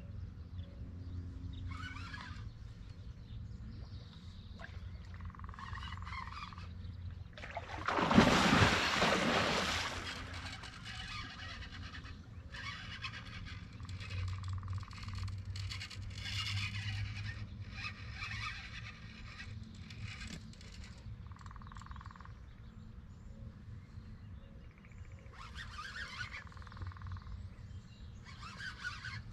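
Birds chirping and calling over a low steady rumble, with one loud burst of rushing noise about eight seconds in that lasts about two seconds.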